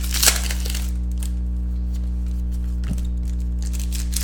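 Foil wrapper of a trading-card pack crinkling and tearing open in the first half-second, then cards being handled, with one sharp click about three seconds in. A steady low hum runs underneath.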